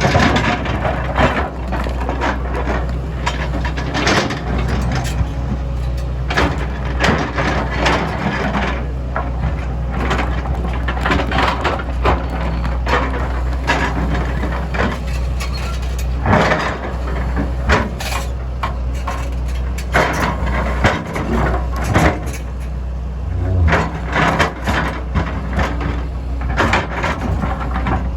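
Tracked excavator's diesel engine running steadily under irregular cracks, knocks and crunches of broken stone, as the bucket scrapes through the rock pile and dumps stone into a truck.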